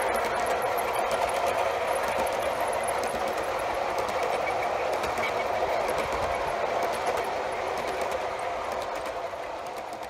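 G-scale model coal train rolling steadily past, its freight cars' wheels running along the track with a continuous rumble and light clicks at the rail joints, easing off slightly near the end.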